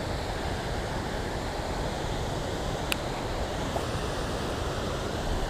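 Steady rushing of river water spilling over a low weir, with a single light click about three seconds in.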